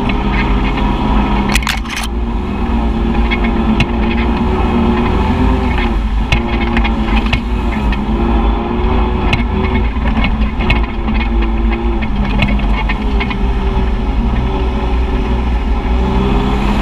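Side-by-side UTV engine running while driving a muddy trail, its pitch dipping and rising every few seconds as the throttle changes, over a steady low rumble. A brief clatter of clicks comes about two seconds in.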